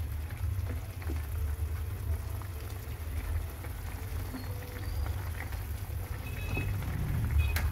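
Chicken in coconut milk simmering in a pan, with a slotted spatula stirring through the sauce and scraping lightly against the pan, over a steady low rumble.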